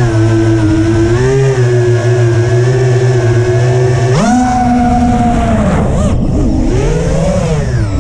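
FPV quadcopter's brushless motors and propellers whining, picked up by the onboard camera. The pitch holds fairly steady, jumps sharply higher about four seconds in as the throttle is pushed for a climb, then dips and swells again near the end with further throttle changes.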